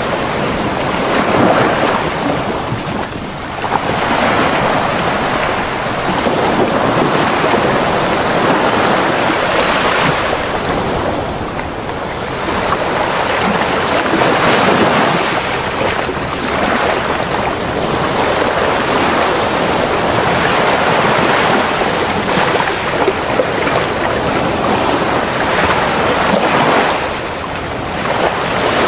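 Sea surf: waves breaking and washing up a beach, the rush of water swelling and ebbing every few seconds.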